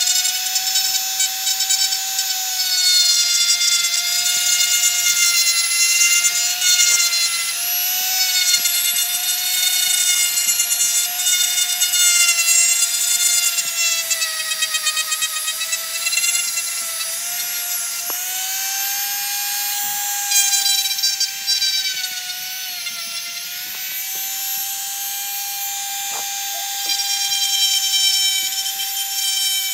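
Handheld rotary tool with a small grinding stone running at a steady high-pitched whine while grinding down a small toy car body. The pitch sags and recovers as the stone is pressed against the work.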